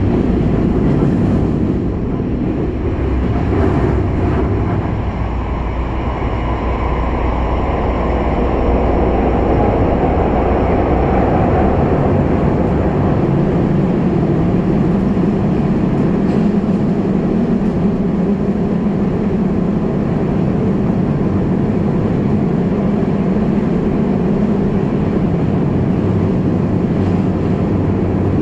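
Kobe Municipal Subway 6000-series train running at speed through a tunnel, heard from inside the car: a steady, loud rumble of wheels on rail, with no station stop.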